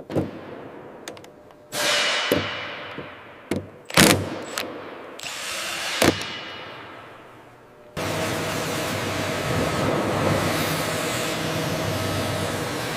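Workshop tool noise: several sharp knocks, each followed by a hissing burst that fades away. About eight seconds in, a steady machine noise with a low hum starts abruptly and keeps running.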